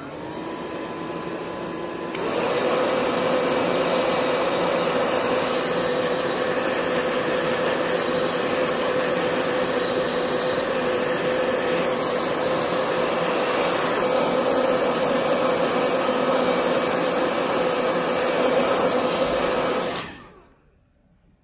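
Electric hair dryer blowing to dry the wet ink on a painting. It starts on a lower setting, steps up to a louder steady rush with a hum about two seconds in, and is switched off near the end.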